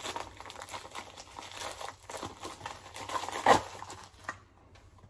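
Plastic packaging of a small mail-order item crinkling and crackling as it is handled and torn open by hand, with the loudest crackle about three and a half seconds in. The handling stops a little after four seconds.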